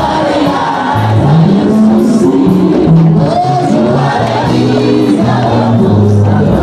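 Gospel music: a group of voices singing over a band, with a bass line of held low notes that change pitch about every half second.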